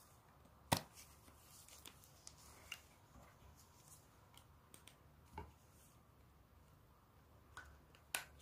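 Slime being kneaded and pressed by hand, giving scattered small sticky clicks and pops, the loudest about a second in and a few fainter ones after.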